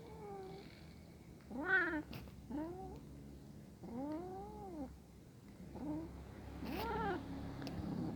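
Cat meowing repeatedly, about six drawn-out calls that each rise and fall in pitch, the longest lasting about a second, about four seconds in.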